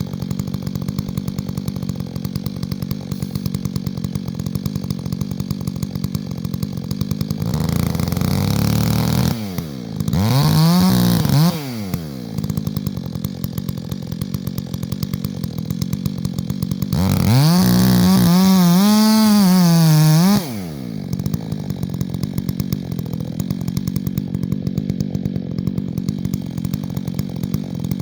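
Chainsaw idling, then opened up to high revs twice for about three seconds each, its pitch climbing and wavering before it drops back to idle.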